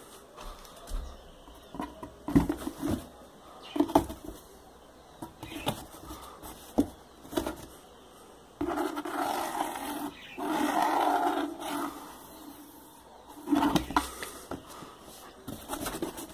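A cat moving about inside a cardboard box: scattered knocks and bumps against the cardboard, with two longer scrabbling stretches just past halfway.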